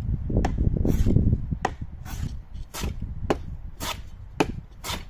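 Short strokes of a hand plane shaving wood, about two a second, as the dovetail joints of a drawer are planed flush.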